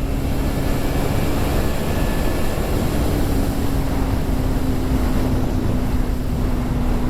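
KTM 390 Duke's single-cylinder engine running steadily at speed under a hard pull, buried in heavy wind rush on the microphone.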